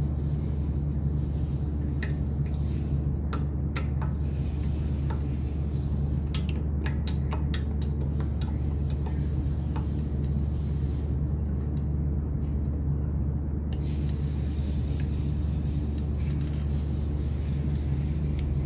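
Steady low hum of running machinery, with a few faint clicks between about 2 and 8 seconds in.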